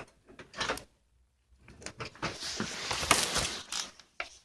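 Handling noises: scattered clicks, knocks and rustles while a heat gun is readied and plugged in, with a brief quiet gap about a second in and the loudest knock a little after three seconds.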